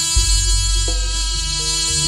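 Live Jaranan ensemble music: a reedy wind instrument holds a melody line that changes note about a second in, over deep drum strokes.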